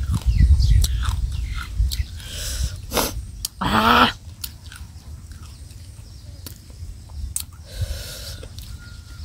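Close-up chewing and mouth sounds of someone eating crunchy food, with small wet clicks. About four seconds in there is one short, loud cry with a wavering pitch.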